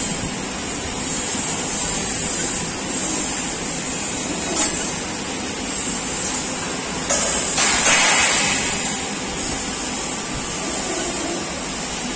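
CNC press brake running with a steady machine hiss and hum. About seven seconds in, a louder rushing hiss lasts a second and a half during a bending stroke, with a light click now and then.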